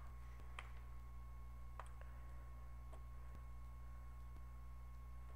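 Faint computer mouse clicks, four in the first three seconds, over a steady low hum.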